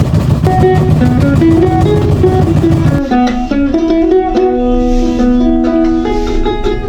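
Background music with a plucked guitar melody. For the first three seconds a steady low rumble runs beneath it, then the rumble cuts off abruptly and the guitar carries on alone.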